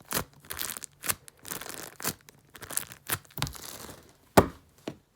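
Plastic bags crinkling and crackling in irregular bursts as squishy toys are handled, with one sharper crackle about four and a half seconds in.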